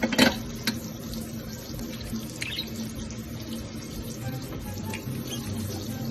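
Steady running water, as from a tap into a sink, with a few short sharp sounds near the start.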